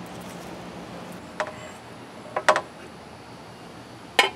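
A few light clicks, then a sharper metallic clink near the end as the aluminium stockpot's lid is handled with a cloth, over a steady low background hiss.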